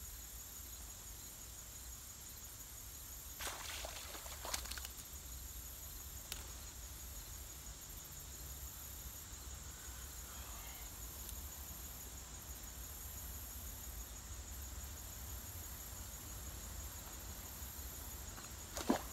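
Outdoor lakeside ambience: a steady high-pitched insect drone over a low rumble. A few brief rustles and clicks come around four seconds in, and a sharp click near the end.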